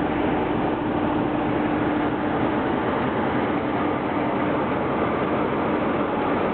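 Main-line locomotive standing at idle, heard close alongside: a steady, loud running noise with a constant hum.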